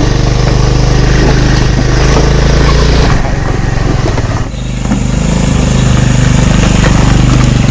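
Motorcycle engine running while riding, with wind and road noise. About four and a half seconds in, the engine note drops briefly, then picks up again a little higher.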